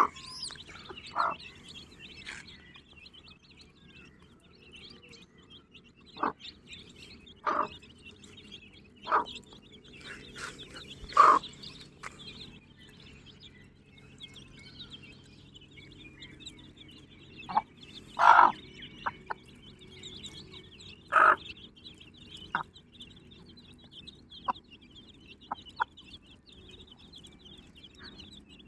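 A brood of chicks cheeping continuously, with an Aseel hen giving short loud clucks every few seconds.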